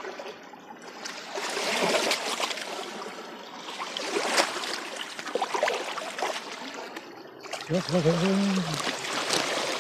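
Water splashing and sloshing in the shallows as a dorado is released back into the reservoir, in irregular splashes. A short voiced sound comes about eight seconds in.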